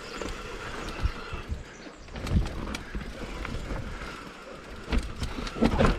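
Mountain bike being ridden over a rough, natural dirt trail: tyres rolling on dirt with irregular knocks and rattles from the bike, heaviest about two seconds in and near the end.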